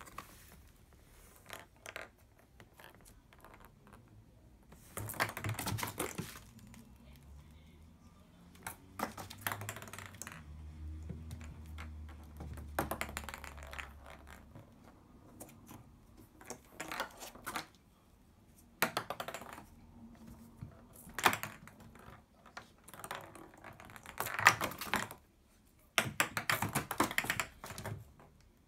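Cat claws skittering and scratching on the hard surface of a bathtub, with light taps from a small ball, in irregular bursts of clicks and scrabbling.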